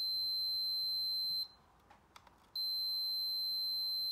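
Digital multimeter's continuity beeper sounding a steady high-pitched tone as the probes touch a diode on a battery charger's circuit board. The tone runs about a second and a half, stops for about a second, then comes on again for the rest. The beep and the near-zero reading show the diode is shorted.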